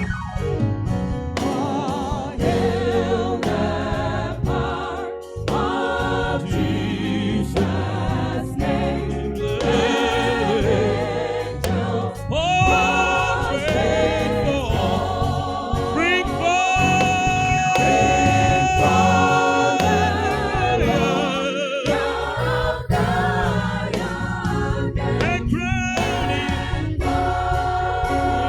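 Gospel choir singing with band accompaniment and a steady beat. Around the middle, the voices hold a long high note for several seconds.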